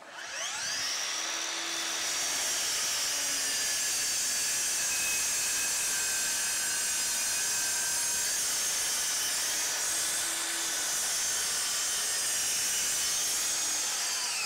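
DeWalt DCS781 60V cordless miter saw's brushless motor spinning up with a rising whine, then running steadily for about fourteen seconds as its 12-inch blade cuts through LVL (laminated veneer lumber). Near the end the pitch falls quickly as the motor brake stops the blade.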